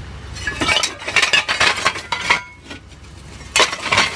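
Rusty steel brake rotors clanking and clinking against one another and against the plate of a scrapyard lifting electromagnet as it pulls them up from the pile. Two runs of rapid metal clinks with a short lull between them, after a low machine rumble that fades in the first half-second.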